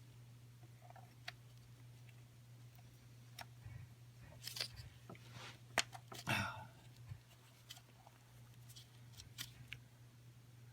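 Scattered light clicks and short scrapes of hands handling and fitting an oiled plastic PCV valve into its port, the loudest about six seconds in, over a steady low hum.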